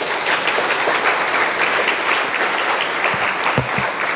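Audience applauding steadily, many hands clapping at once, with a few low thumps a little after three seconds in.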